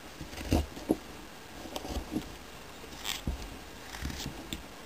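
Carving knife slicing and shaving a wooden block by hand: a series of short, uneven scraping cuts, roughly one every half second.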